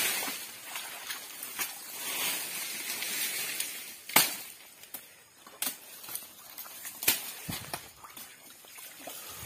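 Dry sago palm fronds rustling and being pulled away, with several sharp cracks of snapping stalks about four, five and a half and seven seconds in, and steps sloshing in swamp water and mud.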